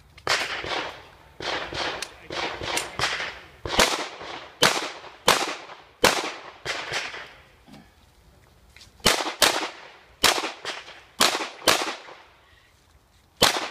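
Pistol shots fired in fast strings during a practical-shooting course of fire: about twenty sharp reports with short ringing echoes, in quick pairs and threes. There is a pause of about a second and a half past the middle, then the shots resume, the last one near the end.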